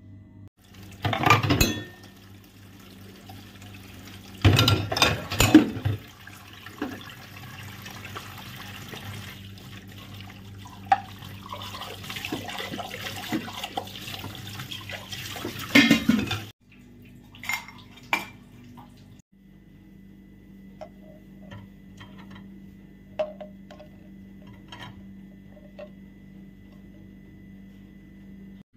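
Kitchen sounds: water running from a tap with dishes clattering loudly a few times, then after the water stops, only a few light clinks over a low steady hum.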